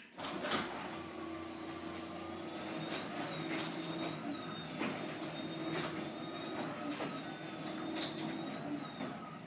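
LiftMaster 8550 belt-drive opener raising an insulated sectional garage door on ball-bearing rollers: a steady, very quiet motor hum with a faint high whine and a few light clicks, stopping near the end.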